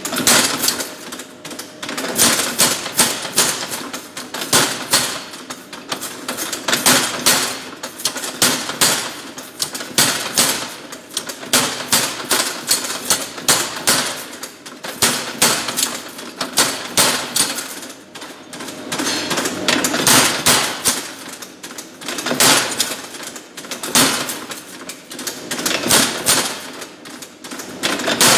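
Power hammer pounding steel held in a forming tool, with rapid repeated blows that come in bursts and slow briefly between them.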